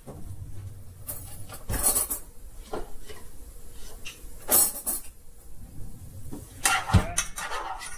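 Scattered clinks and knocks of a small saucepan and kitchen utensils being handled on a glass-top stove, a few seconds apart, with a dull knock about seven seconds in.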